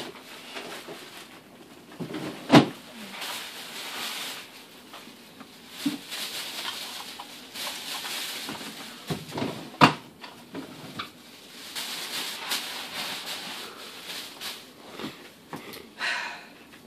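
A grocery bag rustling and crinkling while items are taken out and set into a refrigerator, with scattered clunks and knocks; two sharp knocks stand out, about two and a half seconds in and near ten seconds.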